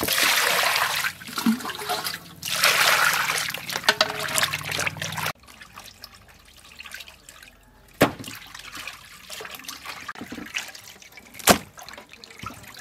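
Water poured from a container into a stainless steel bowl of raw pork offal, in two long pours over the first five seconds. After that, quieter sloshing as hands rub and wash the intestines and organs in the water, with a few sharp clicks.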